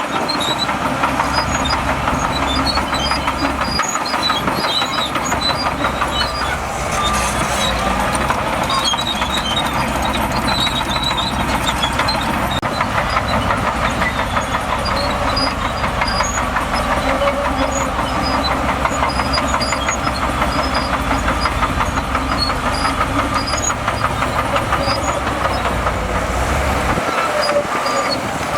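Shantui DH17C2 crawler bulldozer's diesel engine running steadily under load, with a continuous rattle of clanking, squeaking steel tracks.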